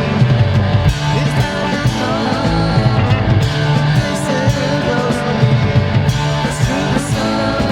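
Rock band playing at a steady loud level: distorted electric guitar over bass guitar and a drum kit.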